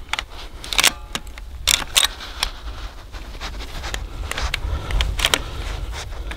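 Scoped bolt-action hunting rifle being handled: a string of sharp metallic clicks and clacks with a short rattle about a second in, and more clicks near the end.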